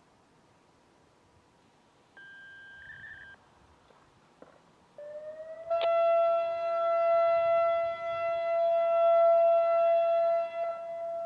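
Federal Signal 2001-SRN electronic warning siren sounding. First comes a brief high electronic beep. A few seconds later a lower tone rises briefly, then settles into a steady tone full of overtones, held loud for about five seconds before fading off.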